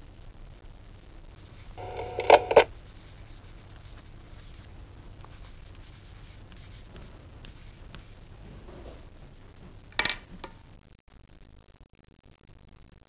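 Telephone answering machine at the end of a recorded message: a short loud burst with a tone in it about two seconds in, and a sharp click about ten seconds in, over faint tape hum and hiss that drops away soon after the click.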